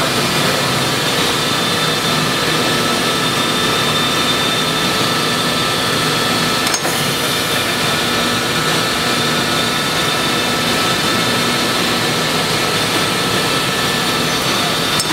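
Mattison surface grinder's segmented grinding wheel running on a plate under coolant: a steady rushing grind with several constant whines over it. One short click about seven seconds in.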